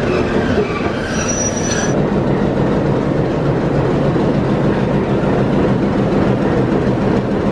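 Diesel locomotive engine running steadily close by: a loud, even low drone. About a second in, a short high-pitched squeal sounds over it.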